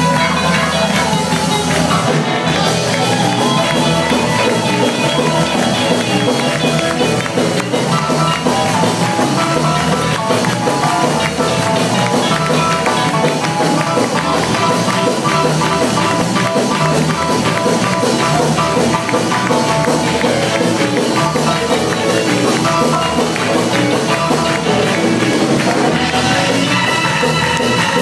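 Live worship band music from a church stage, with keyboard, played at a steady beat.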